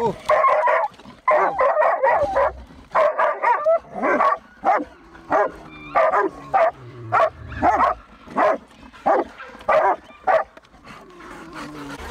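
Pig-hunting dogs barking in a rapid run, about two barks a second, baying at a wild boar held up in a rock hole. The barking thins out and drops in level near the end.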